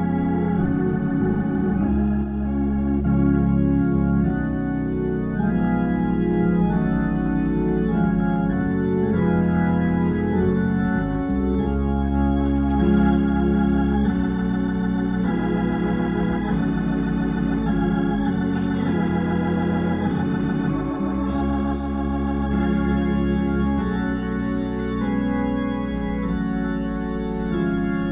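Hammond C3 tonewheel organ being played: full, held chords over strong low notes, changing every second or two.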